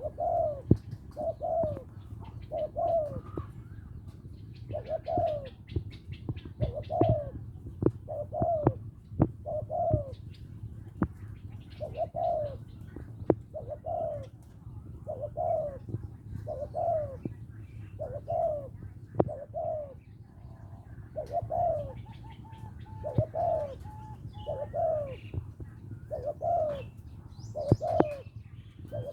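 Spotted dove cooing over and over, a male calling for a mate with short, repeated coos about a second apart. Sharp clicks sound between the coos.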